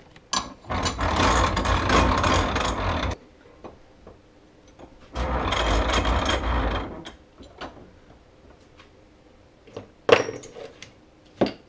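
A bench vise being cranked shut on the clutch roller plate, in two stretches of rattling, grinding metal. Near the end come two sharp metallic clinks as hand tools are picked up.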